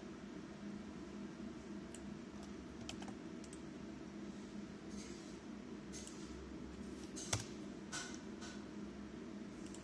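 Scattered light clicks, the loudest a little after seven seconds in, over a steady low hum.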